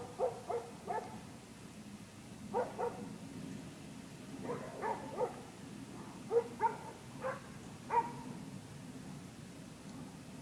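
Dogs barking in short runs of two to four barks, about a dozen over ten seconds, set off by a neighbor teasing them.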